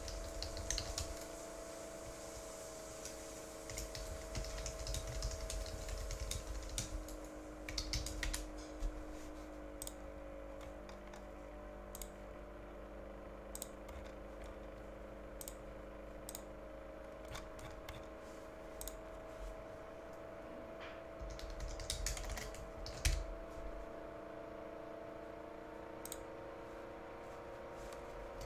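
Computer keyboard being typed on in irregular bursts of clicks, with scattered single clicks in between, over a faint steady hum.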